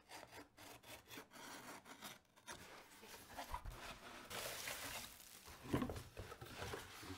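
Faint scraping and rubbing of a cardboard shipping box as it is slit open with a small blade and unpacked, with rustling of crinkled kraft-paper packing and a few small knocks as the boxed item is lifted out.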